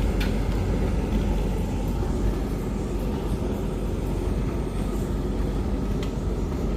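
Hoover Vision Tech tumble dryer and Beko washing machine running together: a steady low mechanical rumble and hum, with a faint click just after the start and another about six seconds in.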